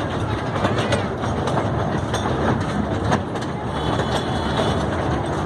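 Miniature ride-on toy train running along its track: a steady rumble with frequent rattling clicks from the wheels on the rails.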